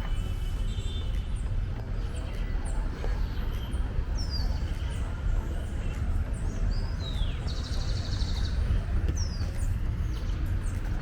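City park ambience: a steady low rumble under birds calling, with several short, sharply falling chirps and a brief fast trill in the middle.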